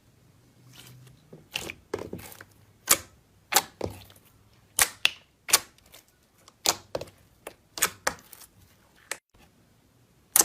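Slime being pressed and worked, trapped air popping in sharp, irregular clicks, roughly one or two a second after the first second.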